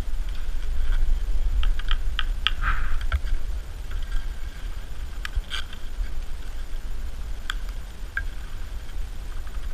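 Skate skis and poles working on packed snow: short scrapes and sharp clicks from the pole plants and ski strides, a cluster of them about two seconds in and a few more later. A steady low rumble of wind buffeting the camera microphone runs under it.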